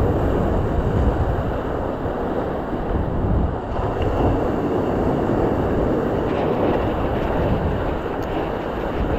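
Surf breaking and washing over shoreline rocks, a steady rushing with wind buffeting the microphone.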